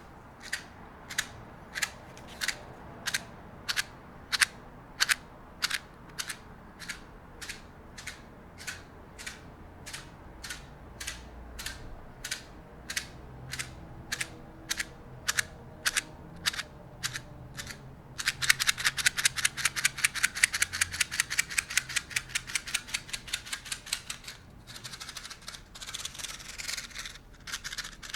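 A series of sharp, evenly spaced clicks, about one and a half a second. About two-thirds of the way in they give way to a fast, louder run of rapid clicking, which pauses briefly and then resumes near the end.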